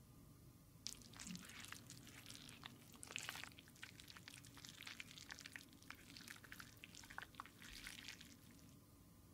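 Faint crackling and squishing clicks as thick red liquid lip gloss is squeezed from a syringe into a clear lip gloss tube. The clicks start about a second in and thin out near the end.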